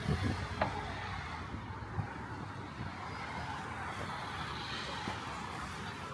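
Road traffic on a busy city street: a steady wash of engine and tyre noise from passing cars, with a few short sharp clicks.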